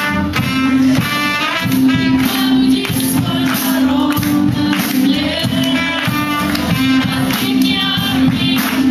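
A live worship band playing a song: women's voices singing over trumpet, keyboard and acoustic guitar, with a tambourine shaken through it.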